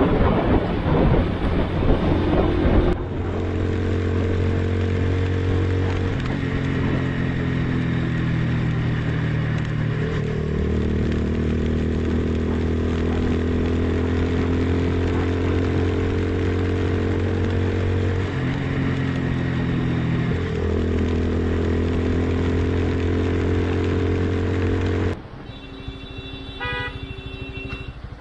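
Motorcycle engine running while riding, holding steady pitches with a few sudden changes in engine note. The first few seconds are wind and road noise.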